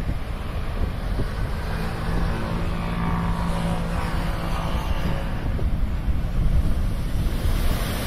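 Rough sea surf breaking on rocks and a seawall, with strong wind buffeting the microphone. A faint low hum comes in for a few seconds around the middle, and a wave crashes into spray near the end.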